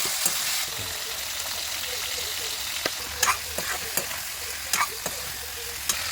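Food sizzling steadily in a hot pan while a utensil stirs it, with several short, sharp scrapes or knocks against the pan.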